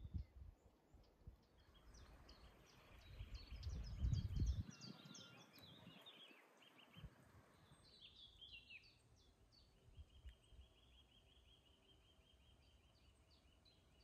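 Songbirds singing in woodland: scattered chirps, a run of quick falling notes a little after halfway, and a long series of rapid repeated notes near the end. A few low footstep thuds at the start and a brief rush of noise with a low rumble about four seconds in.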